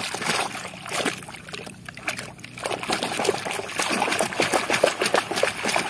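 Water splashing and sloshing in a basin as a hand scrubs a plastic toy monster truck clean of mud, in quick, irregular splashes.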